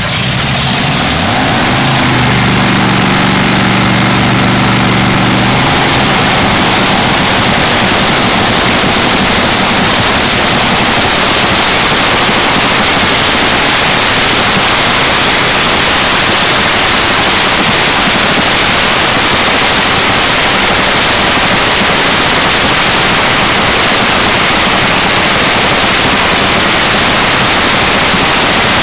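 Top fuel dragster's 8,000-horsepower engine running at a steady idle just after being fired up. It is so loud that the recording overloads into a flat, hiss-like noise, with a steadier low tone heard for a few seconds near the start.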